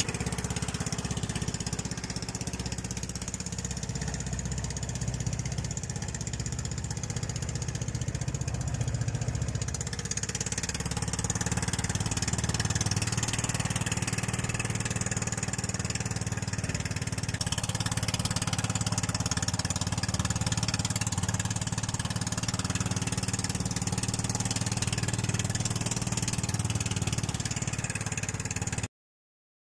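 Small engine of an outrigger fishing boat running steadily under way, with the hiss of spray and wind from the bow cutting through choppy sea; it cuts off suddenly near the end.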